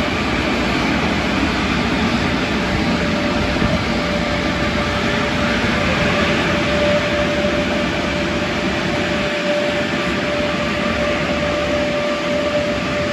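Automatic car wash tunnel machinery running: a steady, loud rushing noise with a steady whine that grows stronger about halfway through.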